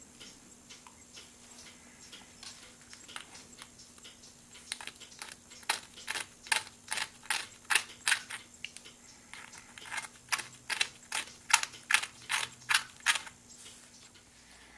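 A quick series of sharp mechanical clicks, about two a second, starting about five seconds in and stopping shortly before the end, with faint ticks before them and a steady low hum underneath.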